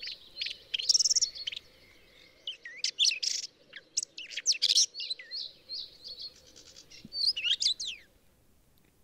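Red-backed shrike singing a varied, quick medley of short chirps, trills and whistled glides, a mimic's song built from phrases of other birds. The song stops about a second before the end.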